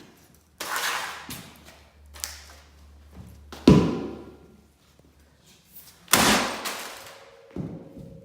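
A series of about five loud knocks, thuds and cracks as the old HP laptop's screen assembly is broken apart to get at its layers, the loudest a little under four seconds in and another just past six seconds.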